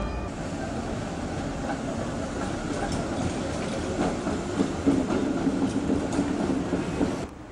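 Articulated HTM city tram running past on its rails: steady rolling noise with a few sharp clicks from the wheels, and a low hum for a couple of seconds in the middle. It cuts off suddenly near the end.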